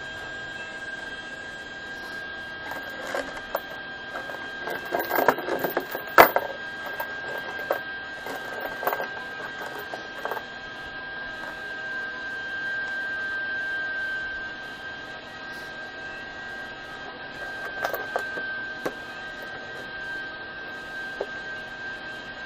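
Steel chain links clinking and clanking against each other and on a plywood board as the chain is laid into a loop by hand, busiest in the first half with one sharp clank about six seconds in, and a few more clinks near the end. A steady high-pitched hum sits underneath.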